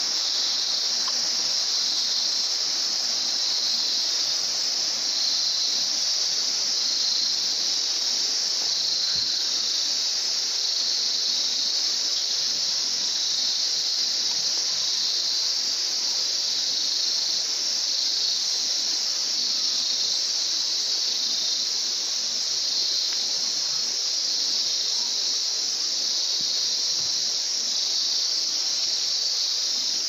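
A chorus of insects shrilling steadily at a high pitch, unbroken and without change in level.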